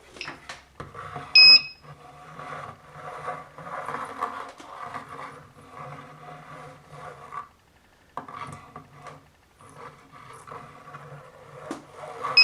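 Handheld security metal detector giving a short, high electronic beep about a second and a half in and again at the end, as it passes over a nail. In between, the detector rubs and scrapes across a reclaimed-wood board, over a steady low hum.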